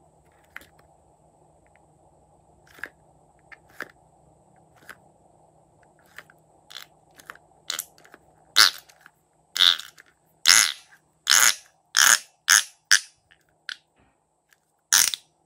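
Pink slime being squeezed out through the neck of a rubber balloon into a glass bowl: scattered small crackles at first, then from about halfway a run of louder wet squelching pops, about one a second, with one more near the end.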